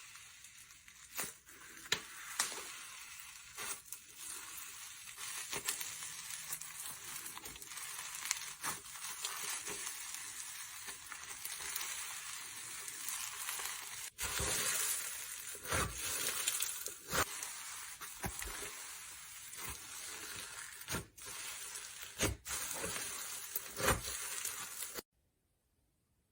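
Slime being squeezed and worked by hand, giving a dense crackling with many sharp little pops. It stops abruptly about a second before the end.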